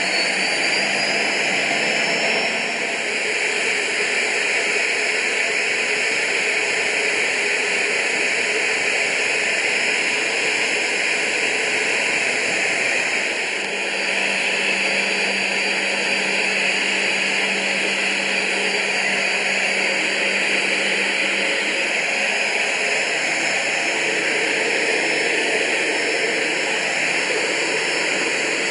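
Steady hiss of a Soko G-2 Galeb's Rolls-Royce Viper turbojet and rushing airflow, heard inside the cockpit in flight. The level dips briefly about 13 seconds in, after which a low steady hum joins for several seconds.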